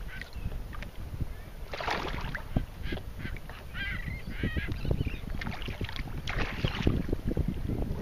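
Choppy waves slapping and splashing against the hull of a plastic fishing kayak, with low wind rumble on the microphone. Seabirds call a few times, mostly around the middle.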